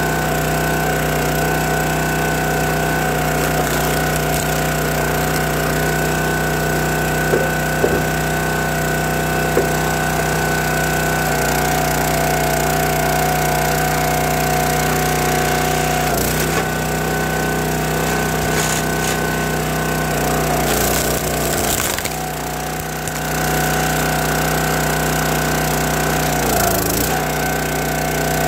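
County Line hydraulic log splitter's small engine running steadily. A few sharp knocks and cracks come from the logs being worked, and the engine note sags briefly near the end as it takes load.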